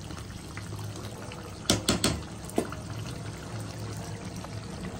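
Thick chicken gravy simmering and bubbling in a metal kadai on a gas burner, with a steady low hum under it. About two seconds in, a spatula knocks sharply against the pan three or four times.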